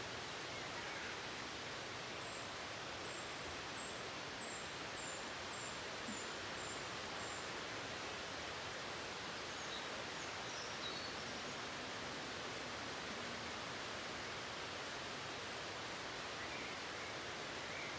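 Steady, even rush of a waterfall. Faint high bird chirps sound over it: a run of about eight short notes a few seconds in, and a few scattered notes around the middle.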